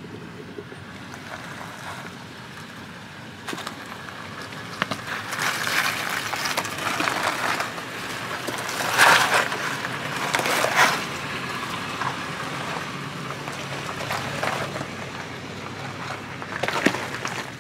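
Toyota 4Runner crawling slowly through a shallow rocky creek crossing: a low engine rumble under tyres splashing through water and crunching over rocks, with the loudest splashes and crunches through the middle and again near the end.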